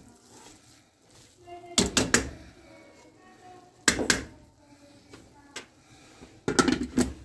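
A wooden spatula knocks sharply against a non-stick pan a few times, twice, then a glass lid clatters down onto the pan near the end.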